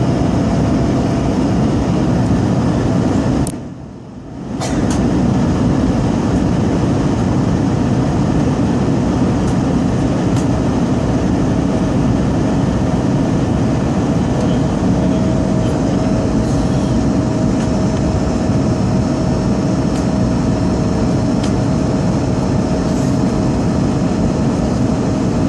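Steady airliner engine and airflow noise, a low rumble with a faint steady hum over it. The noise dips sharply for about a second around four seconds in.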